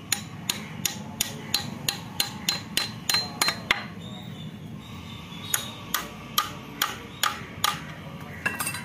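Hammer blows on metal, about three sharp strikes a second for several seconds, a short pause, then a second run of about six strikes.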